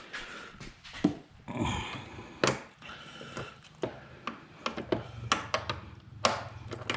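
Scattered clicks and knocks of a hand wrench or socket working loose the bolts on a car's air intake, with some rustling handling between them.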